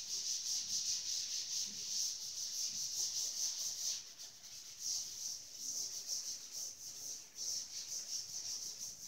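A cloth being rubbed over a chalkboard in quick back-and-forth strokes, wiping off the chalk writing.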